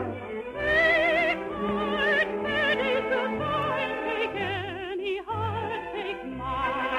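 Operatic singing with wide vibrato over orchestral accompaniment, the sound cut off in the treble like an old radio recording.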